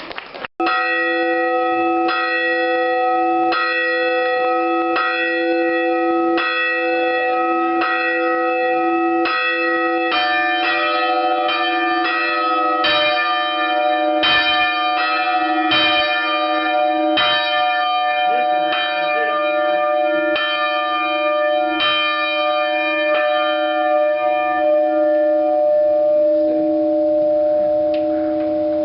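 A ring of church tower bells being rung, loud and close, one strike after another about once a second, each stroke leaving a long ringing hum. The strikes stop near the end and the bells' hum lingers.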